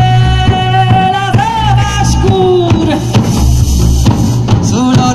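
Live amplified folk music: a woman singing held notes over beating tammorre (large frame drums) and a drum kit.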